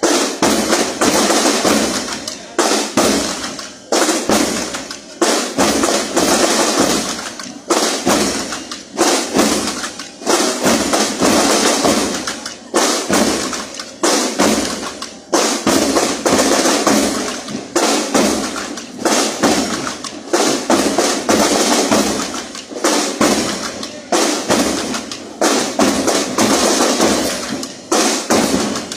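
School marching band's drums, bass drums among them, beating a steady marching rhythm of repeated strikes.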